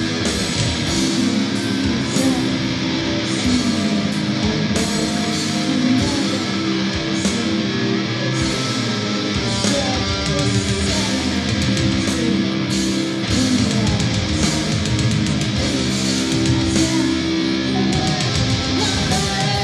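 Heavy-metal band jamming: electric guitar riffing over a loud, dense full-band mix, with no singing heard.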